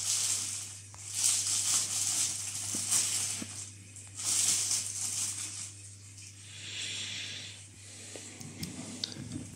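Paper rustling in several swells of crinkly hiss as a large sheet of a printed circuit diagram is handled and moved, over a steady low hum.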